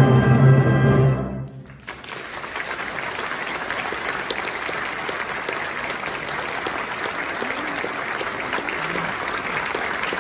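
A symphonic concert band holds its final chord, which cuts off about a second and a half in, followed by steady audience applause.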